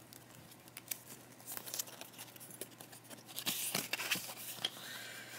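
Product packaging being handled and pulled out by hand: rustling, crinkling and small clicks, busier in the last couple of seconds.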